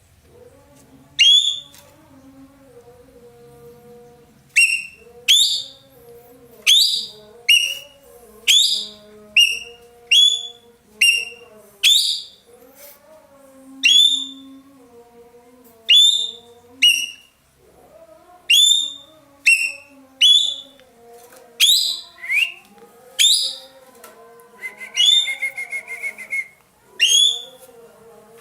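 Ekek keling songbird singing loudly in its 'nembak' style: a long series of short, sharp whistled notes that each sweep upward, roughly one a second and sometimes in quick pairs. About three-quarters of the way through comes a buzzy, rattling trill. A faint, lower warbling runs underneath.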